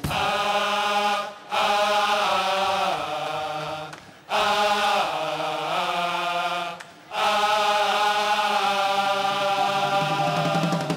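A carnival murga's male chorus singing in unison, holding long notes through four phrases with brief breaks between them.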